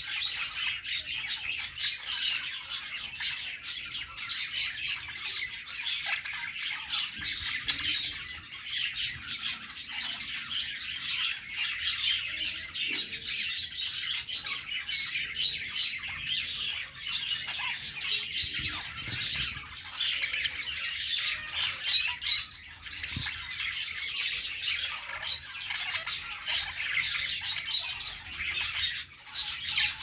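A flock of budgerigars chattering and warbling together: a dense, unbroken stream of quick, high chirps from several birds at once.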